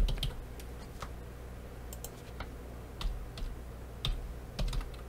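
Computer keyboard keys clicking in short, irregular bursts as a password is typed, over a low steady hum.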